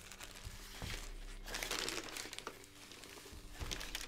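Crumpled brown kraft packing paper and a plastic bag crinkling and rustling as hands pull items out of a box, loudest in a burst a little after the first second.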